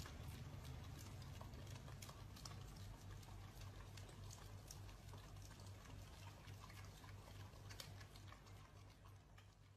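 Faint, irregular wet clicks of two huskies licking soft-serve ice cream from a cone, over a faint low hum.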